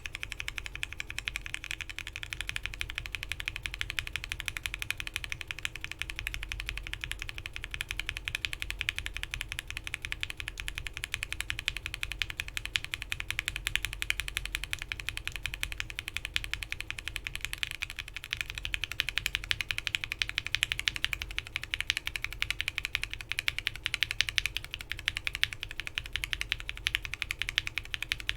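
Continuous fast typing on a mechanical keyboard fitted with lubed linear frankenswitches built on Gateron Milky Yellow housings, with swapped-in top housings and stems, under PBT keycaps. A steady stream of clacky keystrokes.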